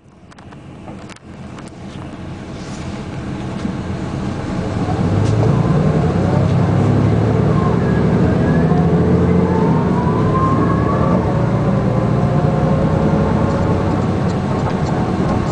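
Den Oudsten Alliance B96 city bus running on its ZF gearbox. The sound grows louder over the first six seconds and then holds steady, with a whine that rises in pitch around the middle.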